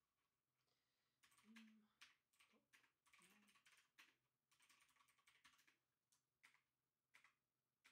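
Faint computer keyboard typing: quick bursts of keystrokes with single key presses in between.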